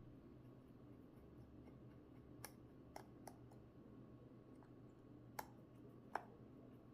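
Near silence with about five small, sharp clicks from a precision screwdriver and tiny screws being handled; the loudest comes about six seconds in.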